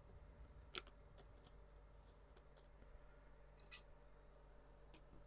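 Faint clicks and light taps of a trading card being handled and slid into a plastic protective sleeve, with a sharp click just under a second in and another near four seconds.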